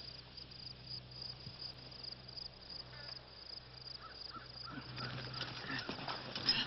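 Crickets chirping in a steady, even pulse over a constant low hum, with some rustling and a few brief knocks in the last two seconds.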